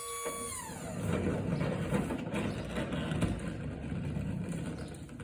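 Delivery truck unloading a pallet: a motor whine slides down in pitch and stops about half a second in. It is followed by a low rumble with scattered rattles.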